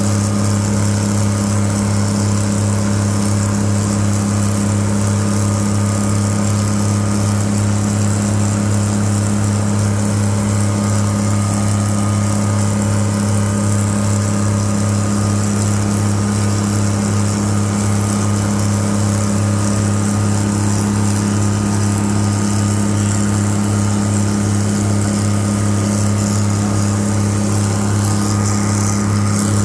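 Twin Cummins NTA-855 inline-six diesel engines of a GE 80-ton center-cab switcher locomotive working hard up a grade: a loud, steady screaming drone that holds one pitch throughout.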